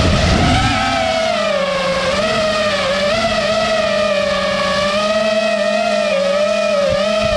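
FPV quadcopter's brushless motors and propellers whining steadily in flight, close to the onboard camera, the pitch wavering slightly up and down as the throttle changes.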